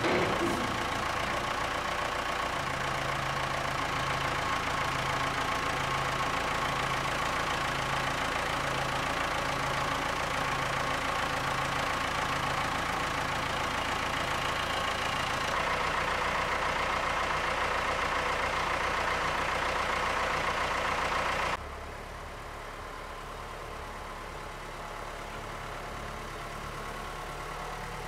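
Ford farm tractor's diesel engine running steadily while it works its front loader. The sound changes abruptly a little past halfway and drops quieter about three-quarters of the way through.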